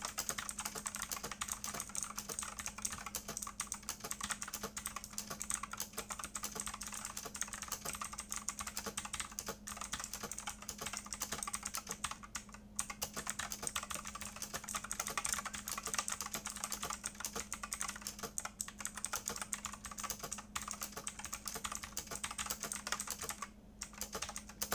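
Fast continuous typing on a mechanical keyboard with Outemu Blue clicky switches and ABS double-shot keycaps: a dense run of sharp clicks at about 80 words per minute, thinning out and stopping near the end. A steady low hum sits beneath it.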